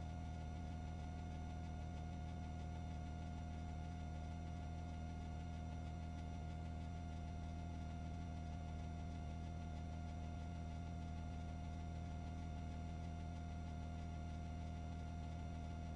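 Steady low hum with a thin constant high tone above it, unchanging throughout.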